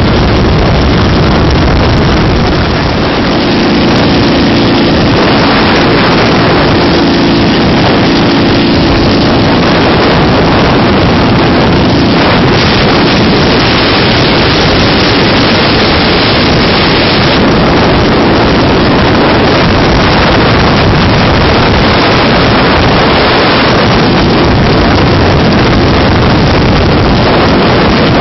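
Dnepr motorcycle's flat-twin engine running at road speed, nearly buried under loud wind noise on the microphone.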